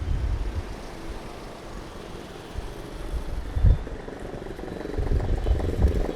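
Light road traffic: vehicles passing with an uneven low rumble and one low thump partway through, an engine growing louder near the end.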